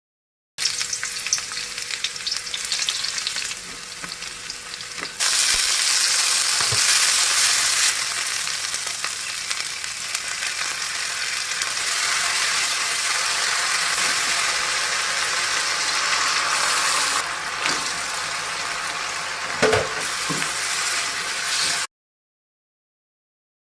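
Food frying and sizzling in hot oil in a pan while it is stirred, with a few utensil knocks against the pan. The sizzle grows much louder about five seconds in and cuts off abruptly near the end.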